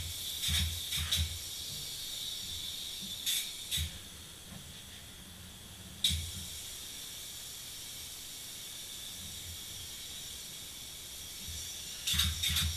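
Open-cell spray foam gun spraying in short hissing bursts, a few early on, one near the middle and a quick run near the end, over a steady high hiss.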